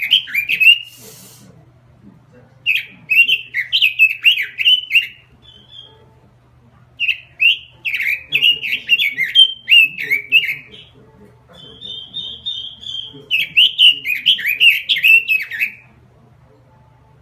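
Pekin robin (red-billed leiothrix) singing in full voice, as used for a lure or master recording. It gives four fast warbling phrases of one to three seconds each, with short pauses between them. A few quick runs of high, even notes fall in the gaps.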